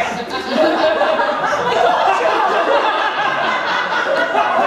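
Audience laughing, many voices at once.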